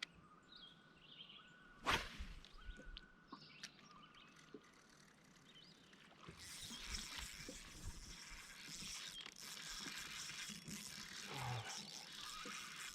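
Faint outdoor ambience on a lake: light bird calls and a single sharp swish about two seconds in, then a steady hiss from about six seconds on.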